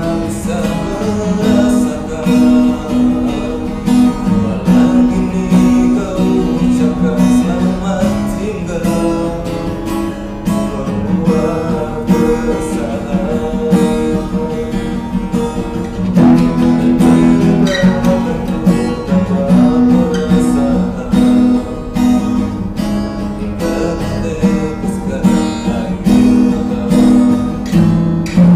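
A man singing along to a strummed acoustic guitar.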